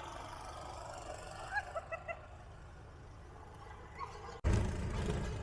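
A snow-plowing vehicle's engine running with a steady low rumble. About four and a half seconds in, a sudden, much louder low rumbling noise starts and carries on.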